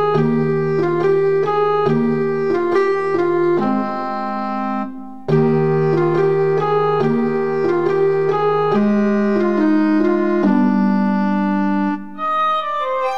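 Instrumental background music on a keyboard, a melody moving over held chords. It breaks off briefly about five seconds in and changes to a different, higher piece near the end.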